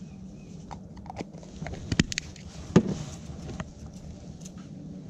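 Light knocks and clicks of seasoning containers and a paper plate being handled on a cooler lid, the two sharpest about two and three seconds in.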